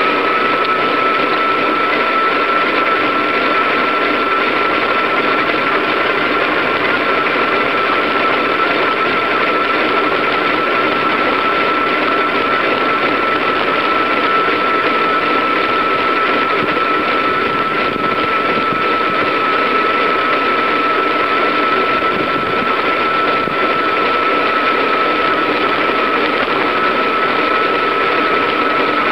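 Steady whirring road and running noise from a bicycle in motion, picked up by a camera fixed to the bike, with a constant high whine laid over it.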